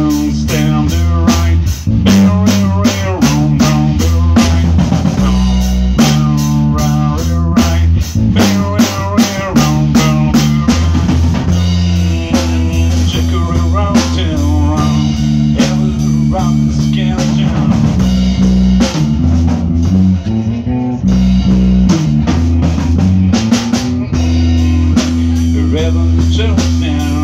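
Live band playing an instrumental rock-blues piece: a drum kit keeping the beat under electric guitar lines and a bass holding long notes.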